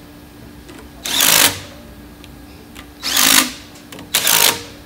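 A power driver tightening the gearbox coupler bolts in three short bursts, each about half a second long, over a low steady hum.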